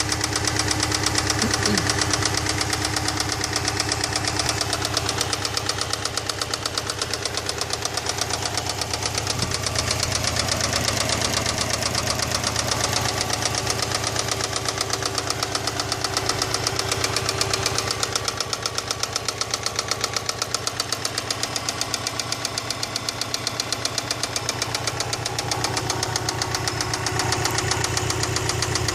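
Subaru EJ206 flat-four engine running at a steady speed with a regular, rhythmic knock.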